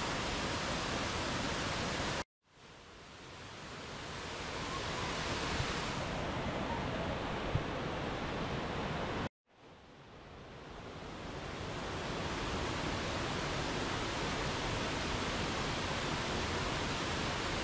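Waterfall rushing, a steady roar of falling water. It cuts out briefly twice, about two and nine seconds in, each time returning quietly and swelling back up over a couple of seconds.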